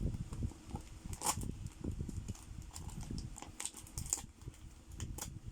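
A cardboard package being handled and opened by hand: irregular light knocks, taps and crinkles of cardboard, tape and paper.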